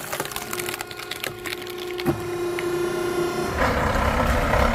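Oak firewood logs knocking and clattering against each other, with a steady hum underneath. About three and a half seconds in, a louder rushing noise begins.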